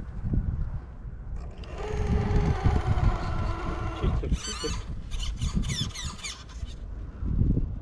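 Electric motor and gearbox of a 1/10-scale RC crawler, an Axial SCX10 III Ford Raptor, whining steadily for about two seconds as it crawls over sand. After that, a bird gives a quick run of chirps. Wind rumbles on the microphone throughout.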